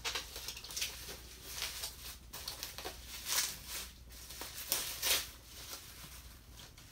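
Plastic bubble wrap crinkling and rustling in irregular bursts as it is pulled off a boxed vinyl figure by hand.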